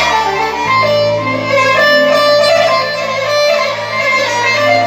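Instrumental interlude of Arabic ataba music: a violin-like melody over a held bass, between the sung lines.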